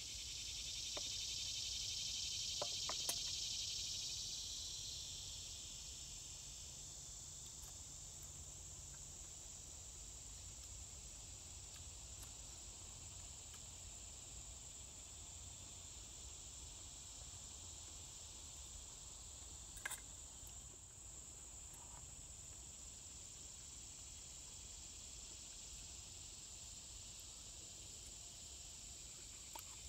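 Steady high-pitched chorus of insects, stronger for the first few seconds and then holding even. A few faint clicks, the sharpest about twenty seconds in.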